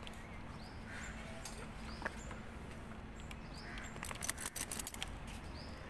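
Small birds chirping faintly now and then, with a quick run of sharp clicks and scuffles about four seconds in.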